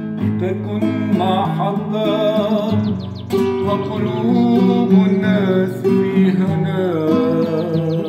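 Acoustic guitar accompanying a man singing an Arabic song, the voice wavering and gliding over the chords.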